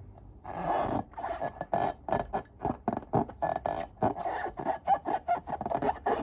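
Slime being mixed and worked: repeated rubbing and scraping strokes, about two or three a second, starting about half a second in.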